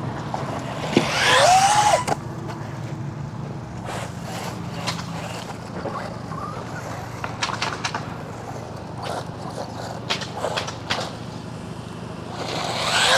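Arrma Typhon Grom RC truck with a KingVal brushless motor running on pavement: a loud rising-and-falling motor whine about a second in, then the tyres rolling and scraping with scattered small clicks, and the motor swelling again near the end.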